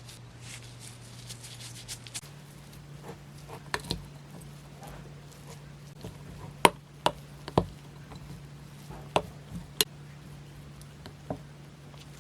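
Scattered sharp knocks and taps of kitchen utensils during food preparation, loudest in a cluster over the middle of the stretch, over a steady low hum that shifts slightly higher about two seconds in.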